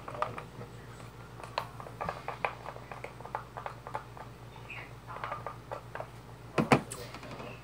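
Irregular small clicks and taps of hands handling things on a tabletop, with two louder knocks close together near the end, over a low steady hum.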